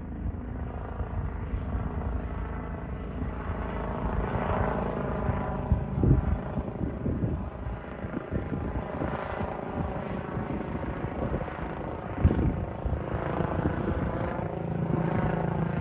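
Helicopter flying overhead: steady rotor and engine noise with a low, beating thrum, and a couple of brief louder thumps near the middle and about three quarters of the way through.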